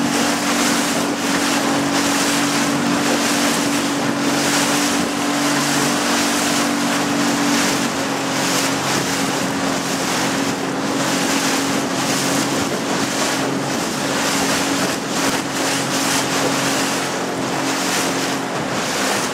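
Small boat's motor running steadily under way, with wind buffeting the microphone and water rushing past the hull. The engine's pitch drops a little about eight seconds in, and its hum fades out near the end.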